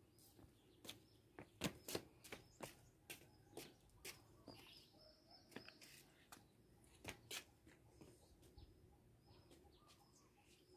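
Near silence: faint, irregular clicks and taps, with a few brief, faint high bird chirps.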